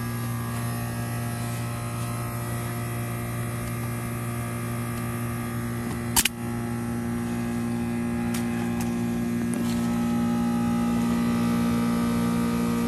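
1996 Goodman 4-ton heat pump outdoor unit humming steadily in its defrost cycle, a compressor-type drone with strong steady tones. A single sharp click or knock comes about six seconds in, and a few faint ticks follow.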